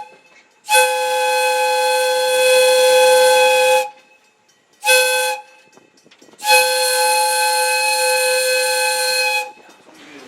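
Steam whistle of Valley Railroad Mikado #40, a 1920 ALCO steam locomotive, blowing a long blast, a short one and another long one: the end of the long-long-short-long grade crossing signal.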